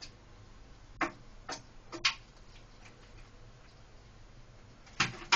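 About five short, sharp ticks at uneven intervals from a cat using a toilet: three within a second or so, starting about a second in, and two close together near the end, over a quiet background.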